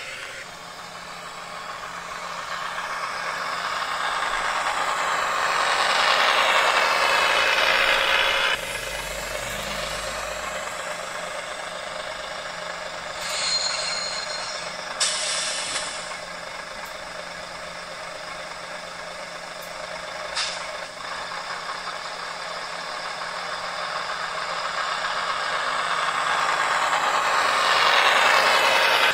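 Zimo sound decoder in an N gauge Class 101 diesel multiple unit model, playing diesel railcar engine sounds through its small speaker while the model runs on the track. The sound grows louder twice as the model comes near. Around the middle there is a brief high tone and a short hiss.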